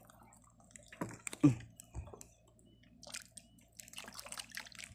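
Water dripping and splashing with small clicks and knocks as a small fish is handled and a micro jig is worked free of its mouth. One short low sound with a falling pitch about a second and a half in.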